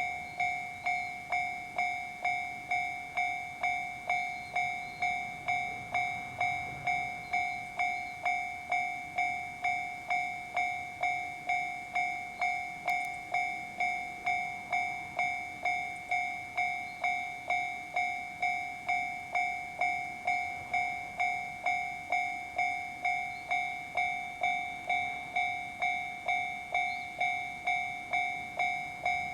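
Japanese railway level crossing's electronic warning bell ringing steadily: a repeated two-tone ding, a little under two strikes a second, with each strike fading before the next.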